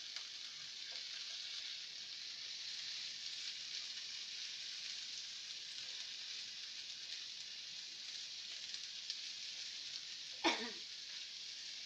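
Chopped red onion and garlic sizzling steadily as they sauté in hot oil in a frying pan. A short voice sound breaks in once near the end.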